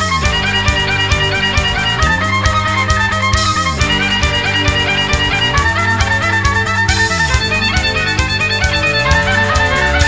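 Instrumental background music: a violin plays a fast melody over a steady beat and a bass figure that repeats about every two seconds.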